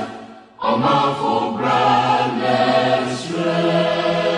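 Music with a choir singing sustained, held chords; the sound dips briefly about half a second in, then comes back.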